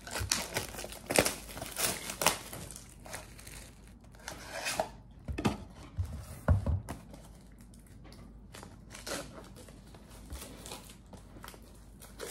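Cardboard trading-card factory-set boxes being opened and plastic-wrapped card packs handled: irregular crinkling and rustling in short spells, with a couple of dull thumps around the middle.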